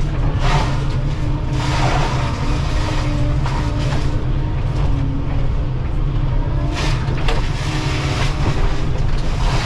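Excavator's diesel engine and Shearex VM-40 forestry mulcher head running steadily under load, with several short bursts of wood being shredded.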